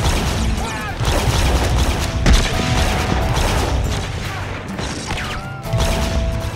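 Film gunfight sound effects: a rapid exchange of pistol and rifle shots with impacts, the loudest shot a little over two seconds in.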